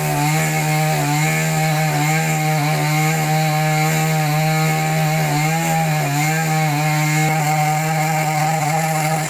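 Two-stroke chainsaw running at high speed, cutting wood, its pitch sagging briefly a little past halfway as the chain loads up.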